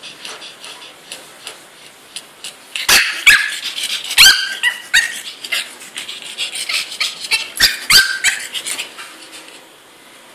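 Three-month-old pug puppy yipping and barking in short high-pitched calls, upset at being shut in its crate, mixed with sharp knocks and clicks as it scrabbles in the wire crate. The loudest calls and knocks come in the middle, and it quietens near the end.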